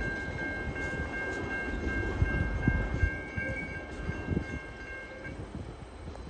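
Container wagons of a freight train rolling past on the rails, with irregular wheel clatter and knocks, the rumble fading as the train moves away. A steady high ringing tone runs alongside and stops about five seconds in.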